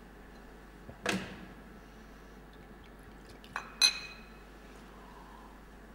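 Drinking glass being handled: a brief splash of liquid about a second in, then two sharp clinks of glass a little past halfway, the second louder and ringing.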